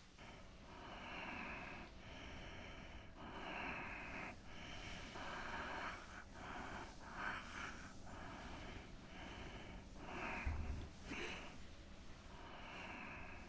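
Faint, quick breathing: a string of short in-and-out breaths, each under a second, about one a second, with a soft low thump about ten seconds in.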